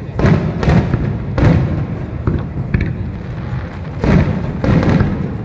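Aerial fireworks going off in a quick series of bangs: about five loud ones, with a couple of smaller pops between them.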